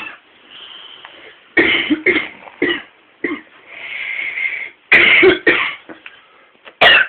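Stifled, snorting bursts of giggling, coming in short runs of two to four with breathy hiss in the pauses.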